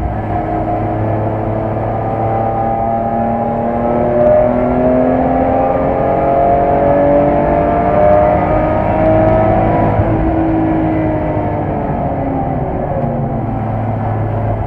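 BMW E46 M3's S54 straight-six heard from inside the cabin, its note climbing steadily under acceleration for several seconds, then dropping away about ten seconds in and carrying on at a lower pitch.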